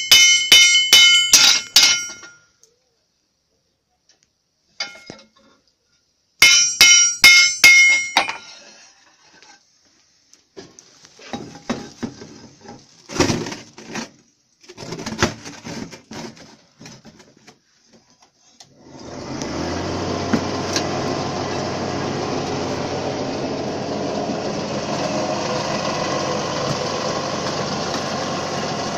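Steel plowshare hammered on an anvil in quick ringing blows, in two bursts: one at the start and one about six to eight seconds in. Scattered clanks and knocks follow, then from about nineteen seconds a steady, even crackle and buzz of electric arc welding.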